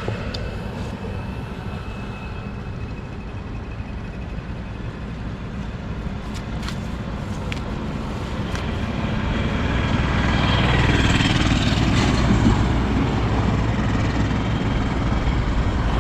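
Steady low rumble of road traffic, with a vehicle passing that swells louder about ten seconds in; a few light clicks in the middle.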